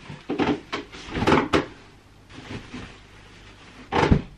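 Knocks and bumps of furniture and cushions being handled while a bed is made up, several in the first second and a half and one louder thud about four seconds in.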